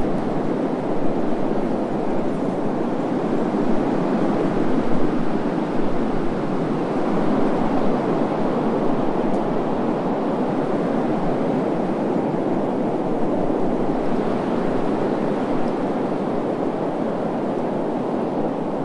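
Wind blowing steadily, a continuous low rushing noise with only slight swells in level.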